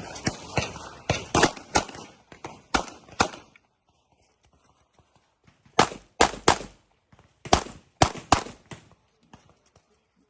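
Handgun shots fired in quick strings: a rapid run of about eight shots in the first three and a half seconds, then after a short pause two more strings of three or four shots each.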